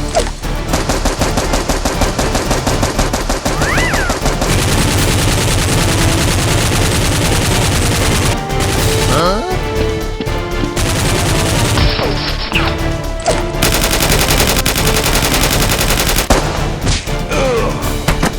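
Rapid automatic gunfire, sustained for most of the stretch in long, dense runs of shots, with a short break around the middle.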